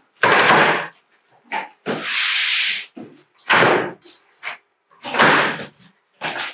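Cardboard carton being opened by hand: about six short bursts of cardboard rubbing and scraping as the flaps and packing are pulled and slid, the longest and hissiest about two seconds in.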